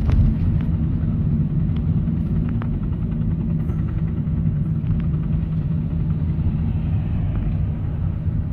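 Steady low rumble heard from inside a car: the car's running engine and road noise mixed with a military helicopter flying low overhead. A brief knock right at the start.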